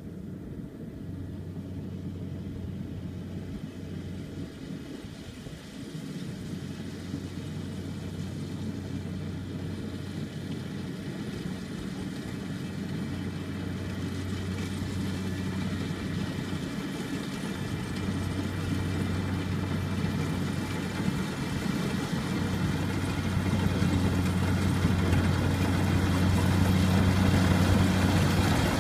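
Engine of a tracked rice combine harvester running with a steady hum while it harvests, growing steadily louder as the machine comes closer.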